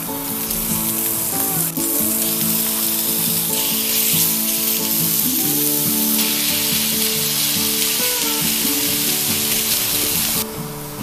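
Food frying in a hot pan, a steady sizzle that grows louder in steps and cuts off suddenly near the end.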